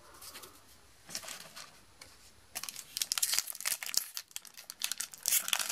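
Foil wrapper of a Magic: The Gathering Kaladesh booster pack crinkling in the hands, starting about two and a half seconds in and continuing as a dense crackle.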